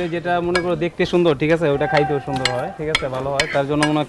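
Pigeon pieces sizzling on a barbecue grill, with metal tongs clicking against the grill several times, over a pitched, tune-like sound that holds notes and steps between them.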